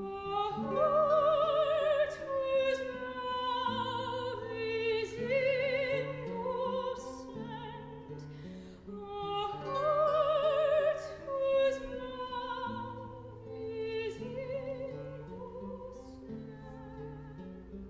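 Classical soprano singing with wide vibrato over baroque guitar accompaniment: two long phrases with a short break between them.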